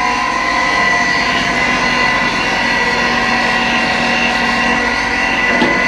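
Steady hum of a running electric machine, holding several constant tones, with a brief scrape or knock near the end.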